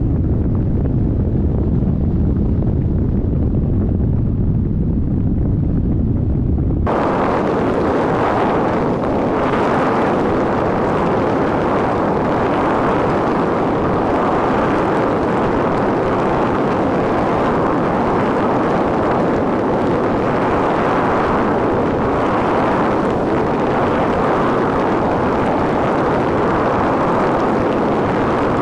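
Steady rush of airflow over the microphone of a camera mounted on a hang glider in flight. About seven seconds in, the noise switches abruptly from a low rumble to a brighter hiss.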